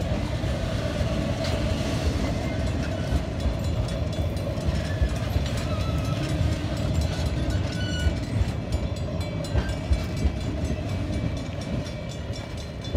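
Napa Valley Wine Train passenger cars rolling past on the rails: a steady rumble of steel wheels with scattered clicks from the wheels and track, easing off slightly near the end as the last car goes by.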